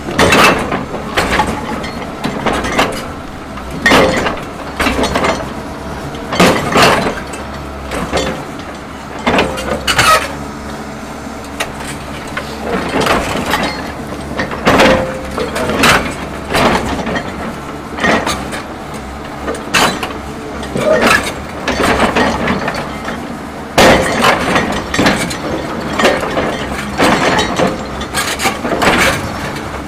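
Excavator ripper tooth striking and scraping frozen ground over the excavator's running engine, with a sharp cracking impact every second or two. The ground is frozen hard and the ripper won't bite in.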